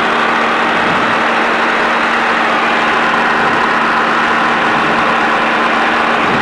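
Quad City Challenger II ultralight's air-cooled engine running steadily, its cylinder head cooling back down after a high-temperature alarm.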